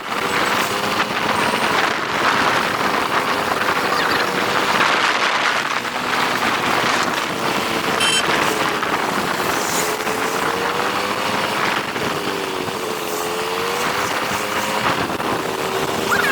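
TVS Apache RTR 180 motorcycle being ridden, its engine note slowly rising and falling with speed under a steady rushing noise.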